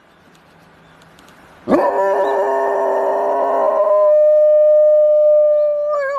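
Golden retriever howling in imitation of an emergency siren. After a quiet start, one long howl begins suddenly just under two seconds in, rich and full at first, then thins to a single steady high note held to the end.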